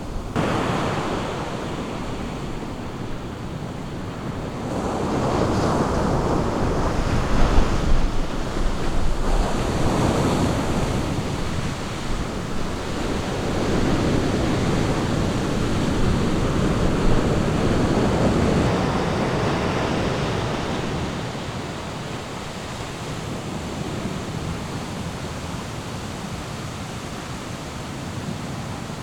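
Ocean surf breaking on a beach, the rush of the waves swelling and ebbing in slow surges several seconds apart, louder in the first two-thirds and calmer near the end.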